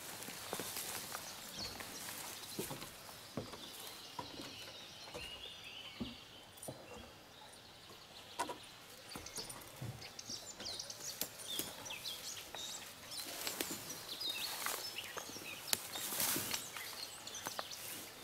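Footsteps and rustling through bracken and undergrowth, then boots knocking on the rungs of a wooden ladder as a person climbs it, with scattered clicks and knocks.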